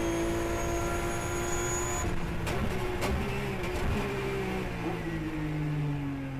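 Onboard sound of a Porsche 911 GT3 Cup car's flat-six at full throttle in top gear. It then brakes hard and shifts down through the gears, with a run of sharp cracks from the downshifts. The engine note falls as the car slows for a corner.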